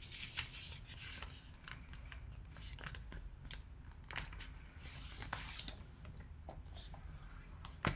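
A sheet of paper being folded and creased by hand: soft, scattered crinkles and rustles, with a sharper click near the end.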